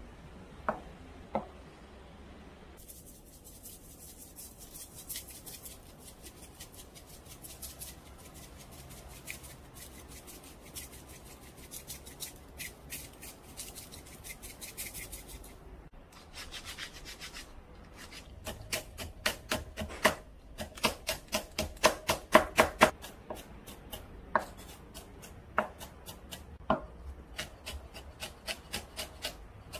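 Kitchen knife chopping on a wooden cutting board: a couple of knocks as tofu is sliced, then runs of quick, light strokes, growing stronger and faster in the second half as a red chili is finely chopped.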